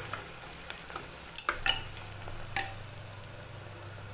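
Sliced onions sizzling in oil in an aluminium pressure cooker as a long steel ladle stirs them, with a few sharp metal clinks of the ladle against the pot. The loudest clink comes about two and a half seconds in.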